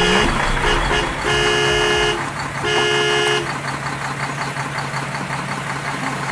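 Vehicle horn honking: a short honk, two quick beeps, then two long honks. A low, steady engine idling hum follows.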